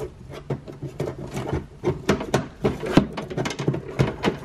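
A car door lock actuator being worked into place inside the door: irregular clicks, taps and scraping as it is lined up.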